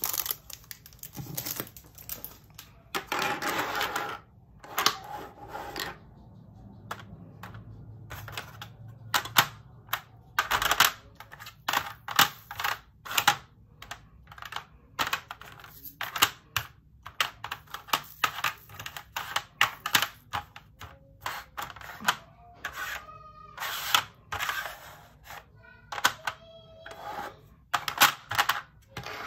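Small clear plastic drill containers and their snap lids clicking and clattering on a table as round resin diamond-painting drills are poured into them and shaken. A denser rattle of pouring drills comes about three seconds in.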